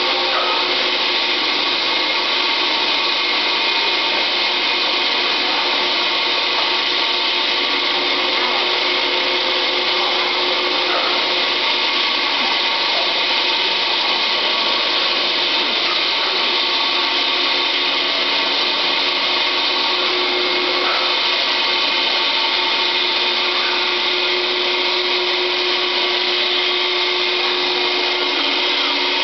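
Electric ice-cutting power tool running steadily as a block of ice is fed through it: a continuous, even machine noise with several steady tones.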